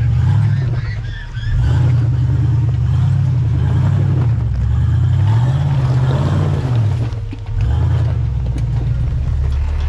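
Jeep Wrangler's engine working under load as it crawls over a rock ledge, the note rising and falling with the throttle and dropping away briefly twice.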